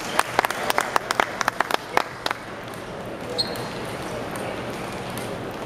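Table tennis ball bouncing repeatedly: a quick, even run of light clicks, about six a second, that fades and stops after a little over two seconds.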